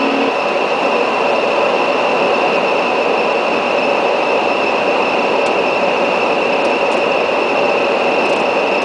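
Steady flight-deck noise of an MD-82 airliner on approach: an even rush of airflow with a constant high-pitched whine.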